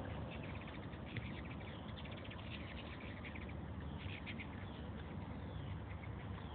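Hummingbirds giving rapid high chittering calls in several short runs, over a steady low rumble.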